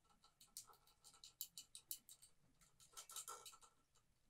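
Faint, quick scratching and light ticks from hands working with paint supplies: a run of short scrapes over the first couple of seconds, then a second cluster a little after the middle.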